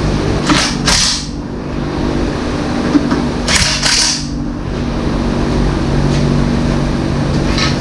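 Cordless drill driving bolts to fasten a small engine down to its stand: two short bursts, each of two quick runs, about three seconds apart, over a steady background hum.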